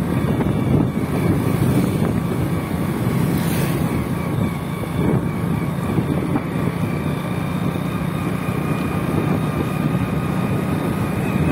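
Motorcycle running at a steady cruise, its engine a steady low drone under road and wind noise.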